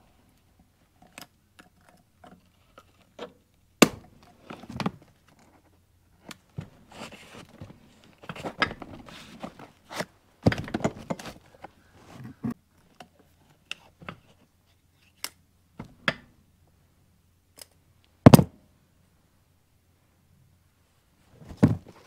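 Piston rings being worked off a diesel engine piston with ring expander pliers: scattered small metallic clicks and taps, rustling handling, and one louder knock late on.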